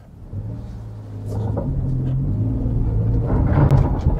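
Daihatsu Hijet kei truck's 660cc engine revving up under load on a hill start in soft mud, pitch climbing and getting loudest shortly before the end, then easing off as the truck fails to climb and bogs down.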